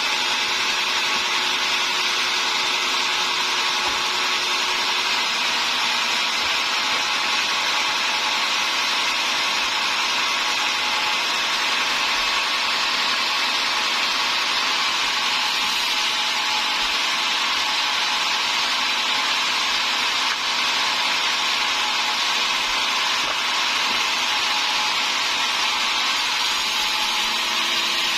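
Sawmill saw running steadily through timber: an even, loud cutting noise without a break.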